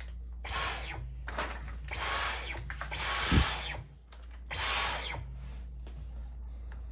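Dyson V15 Detect cordless stick vacuum's motor triggered in four short bursts, each ending in a falling whine as the motor spins down. A single low thump about three seconds in.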